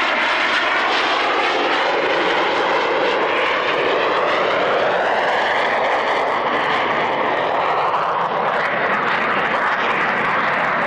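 Aermacchi MB-339 jet flying a low display pass, its turbojet giving loud, steady jet noise. A whine in it slides down and back up in pitch as the aircraft moves past.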